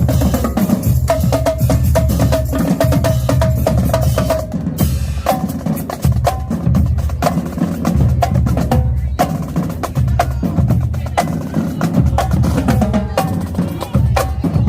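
High school marching band drumline playing a loud, dense cadence: rapid snare and tenor drum strokes over heavy bass drum hits.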